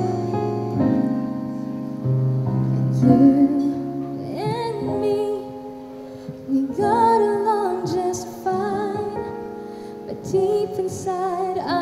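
A woman singing into a microphone with piano accompaniment. The piano plays chords alone at first, and her voice comes in about three seconds in, with a wavering vibrato on held notes.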